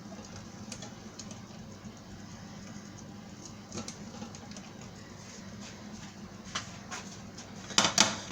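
Rice being served from a rice cooker onto a plate with a utensil: a few soft taps and scrapes over a low steady hum, then a quick clatter of utensil against dish near the end.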